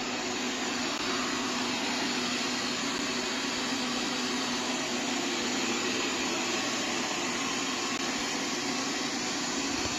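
Vrillo J050 robot vacuum cleaner running: a steady whir with a faint low hum.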